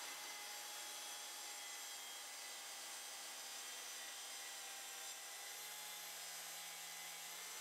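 Festool plunge track saw running steadily as it is pushed along its guide rail, cutting lengthwise through a pine board.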